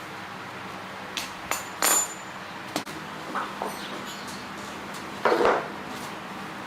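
Metal parts and tools clinking and knocking on one another during hand work on an engine, with a few separate strikes, one of them ringing briefly, and a louder clatter near the end, over a steady low hum.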